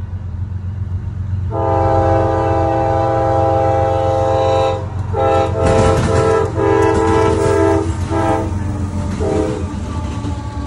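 Diesel freight locomotives passing close by, their engines rumbling while the lead locomotive's air horn sounds two long blasts and then shorter ones. Partway through, the wheels bang over the track crossing diamond.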